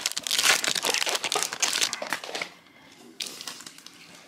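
Foil trading-card pack wrapper crinkling as it is pulled open. The crinkling is dense for about the first two and a half seconds, then drops to quieter rustling as the cards come out.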